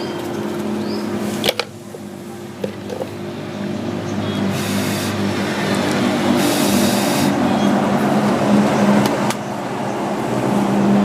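A steady mechanical hum over a noisy background, with a sharp click about a second and a half in and two short hisses a few seconds later.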